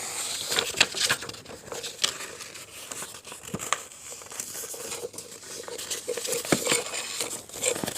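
A sheet of paper being folded and handled, crinkling and rustling with irregular sharp crackles and taps as it is creased into a paper airplane.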